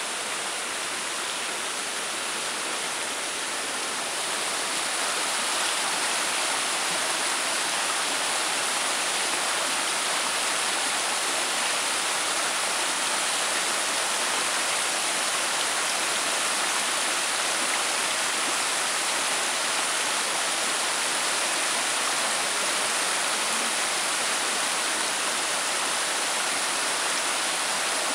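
A shallow, rocky mountain creek rushing over stones and small cascades: a steady, even rush of water that grows a little louder about five seconds in.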